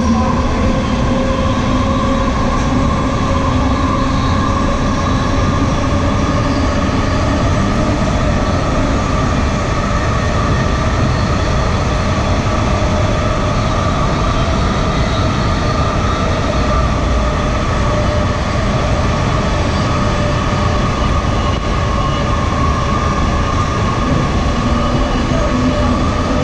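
AirTrain JFK car (Bombardier ART 200) running at speed along its elevated guideway, heard from inside the car. A steady rumble of the running gear on the track carries a steady whine in several tones.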